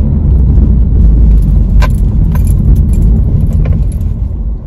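Inside a moving car's cabin: a loud, steady low rumble of road and engine noise, with a few light clicks over the top.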